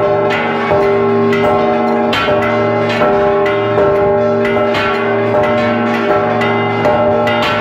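Church bell rung close up in a repique: a hand-pulled rope swings the clapper against the bell about once every 0.7 s. Each loud strike rings on and overlaps the next.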